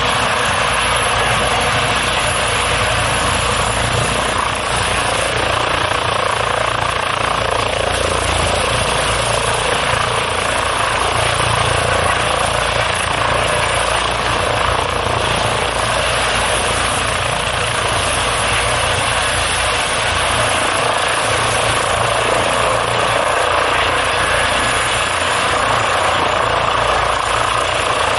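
Eurocopter EC155 (Airbus H155) helicopter in a low hover: a loud, steady mix of its twin turboshaft engines' whine and the noise of the main rotor and the Fenestron tail rotor.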